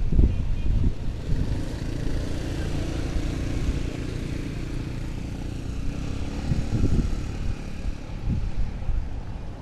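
Commuter train running, heard from inside the carriage: a steady low rumble with irregular low thumps from the wheels on the track, and a faint hum over it.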